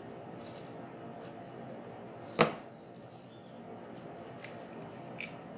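A makeup compact and brush being handled and put down: one sharp click about two and a half seconds in, then a few faint taps near the end, over a steady low room hiss.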